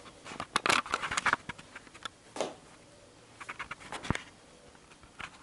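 Scattered light taps, clicks and rustles of handling in a kitchen, with one sharp click about four seconds in.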